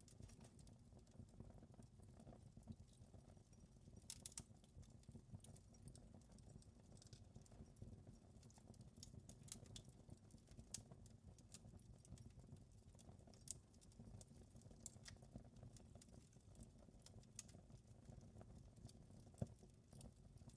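Wood fire crackling quietly: irregular sharp pops and snaps over a low steady rumble, with a few louder pops scattered through.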